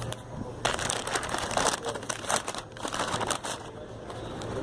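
Paper takeout bag and sandwich wrapper crinkling and rustling, an irregular run of crackles starting about half a second in, as a sandwich is worked out of the bag.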